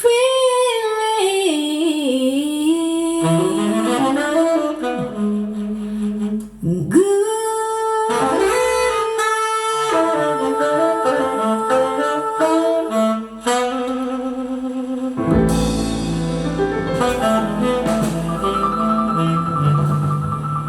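A jazz recording with saxophone and brass playing long held notes and changing chords, with a deeper bass layer joining about 15 s in. It is played from CD through a 10 cm full-range speaker driven by a CV4055 push-pull tube amplifier, heard through the air in the room.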